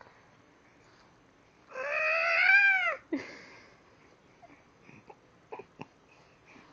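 A child's voice making a playful monster noise: one drawn-out, high-pitched cry lasting just over a second about two seconds in, its pitch rising and then falling. A few faint clicks and taps follow.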